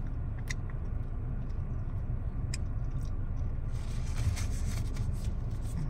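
Steady low rumble of a car idling, heard from inside the cabin, with a few small clicks. From about four seconds in comes a stretch of rustling, as of a paper napkin handled while sticky fingers are wiped.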